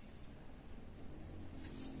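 Quiet room tone with a faint low hum and a few light taps, between bouts of handling plastic toy kitchen pieces.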